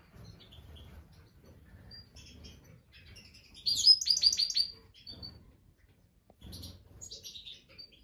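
Black siskins chirping with scattered short, high calls. About four seconds in comes a loud, quick run of about six chirps, the loudest sound here.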